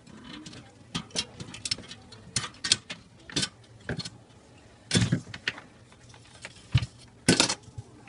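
Irregular clicks, taps and light knocks of metal and glass being handled as a glass-tube defrost heater is worked loose and slid out from under a refrigerator's aluminium-finned evaporator. The loudest knocks come about five seconds in and again just past seven.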